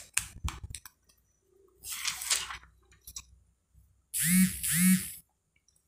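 A smartphone's plastic back cover being snapped back into place with a few sharp clicks, then some handling. About four seconds in there are two short buzzes, each about half a second long, as the itel Vision 1 Pro is switched on.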